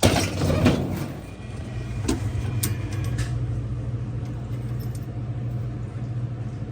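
Freshly installed replacement refrigerator compressor running with a steady low hum, after a short burst of clattering handling noise in the first second or so, with a couple of light clicks.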